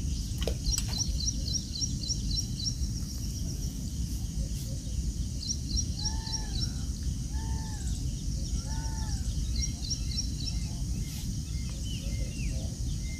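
Birds calling over a steady low rumble. Quick runs of high chirps come in several bursts, and three arched lower calls sound between about halfway and two-thirds of the way through.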